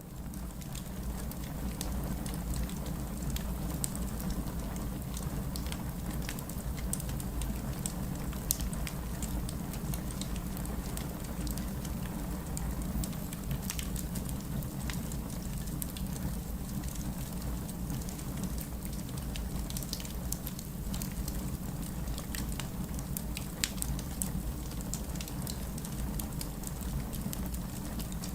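Wood fire burning in a fireplace: a steady low rumble with scattered sharp crackles and pops at irregular intervals.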